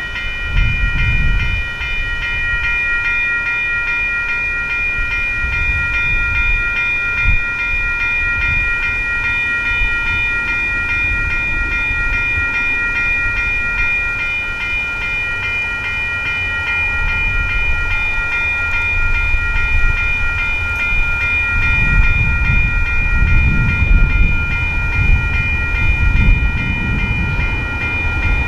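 A railroad grade-crossing warning bell rings continuously with quick, even strikes while a train rumbles through the crossing. The rumble grows heavier about two-thirds of the way in.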